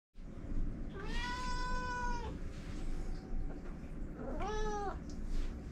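Domestic cat meowing twice: a long drawn-out meow about a second in, then a shorter one near the end.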